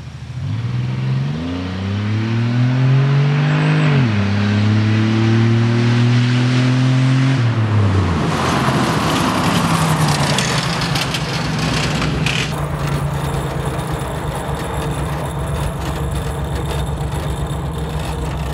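A 2003 Pontiac Grand Am, cut in half and running on caster wheels at the back, accelerating hard at about 65 mph: the engine revs climb, drop once at a gear change about four seconds in, and climb again. About halfway through, the engine note falls away under a rush of tyre and wind noise as the car passes, then the engine runs on at a steadier, lower pitch.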